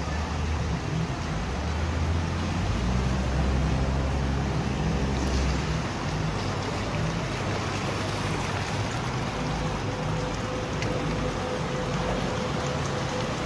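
Flowing floodwater rushing steadily, with a low rumble through the first half and a faint steady hum near the end.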